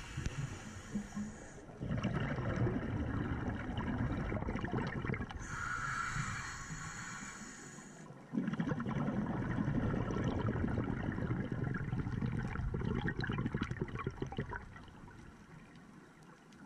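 Scuba diver breathing through a regulator, heard underwater through the camera's housing. A hissing inhale gives way to a long bubbling exhale. Another inhale comes about five seconds in, then a second exhale from about eight seconds that fades near the end.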